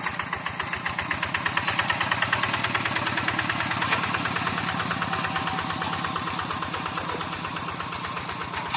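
Hand tractor's single-cylinder diesel engine chugging in a fast, even rhythm while it pulls a moldboard plow through the soil, a little louder about two seconds in.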